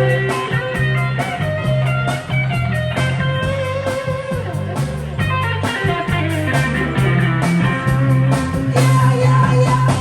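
Rock music with guitar over a stepping bass line and a steady drum beat.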